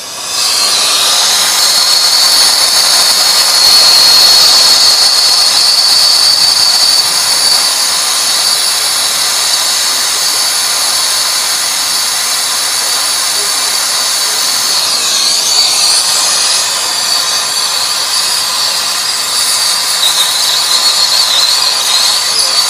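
Brazing torch burning with a loud, steady gas hiss as a new compressor's refrigerant lines are brazed in. Its tone shifts briefly about fifteen seconds in.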